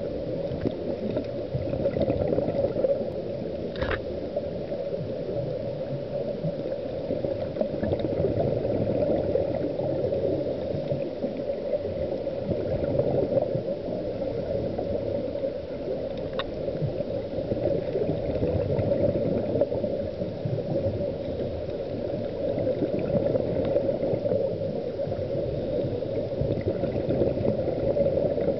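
Muffled underwater rushing and gurgling picked up through a camera's waterproof housing during a scuba dive, swelling and fading every few seconds with the diver's regulator breathing and exhaled bubbles. Two brief clicks, about four and sixteen seconds in.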